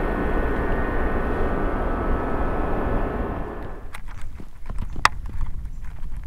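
Steady hum of a boat motor with a faint whine, which stops after about four seconds. Then quiet scattered clicks and ticks as a crankbait lure is handled against the rod.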